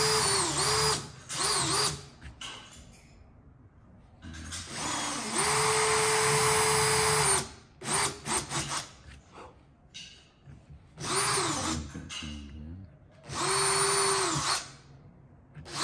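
A cordless drill bores holes in timber with a small Forstner bit, in repeated runs of a steady motor whine. Each run lasts a second to three, the longest about four seconds in, and the pitch dips and winds down as the trigger is eased off. Short trigger blips fall between the runs.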